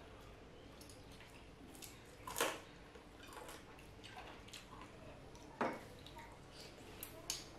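Wet eating sounds of people eating duck curry by hand: soft chewing and lip smacking, with two louder smacks about two and a half and five and a half seconds in.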